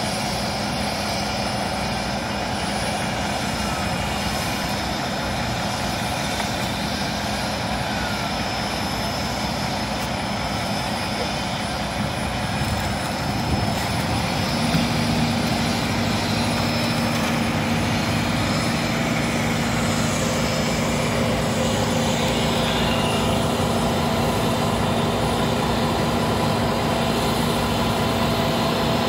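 Diesel engines of fire ladder trucks running steadily with their aerial ladders raised. About halfway through, the engine note steps up to a higher pitch and gets a little louder.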